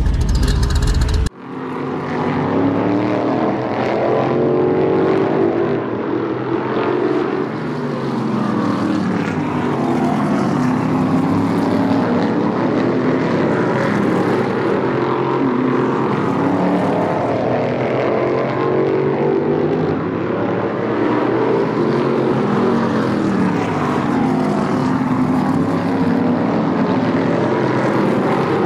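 Pavement modified race car engine running hard on the track, its pitch repeatedly rising and falling as the car accelerates down the straights and lifts for the corners. It starts after a sudden break about a second in.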